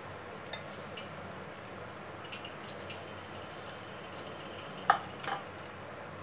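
Wire whisk stirring a wet wheat-flour batter in a bowl, with a few clinks of the whisk against the bowl, the two loudest close together about five seconds in.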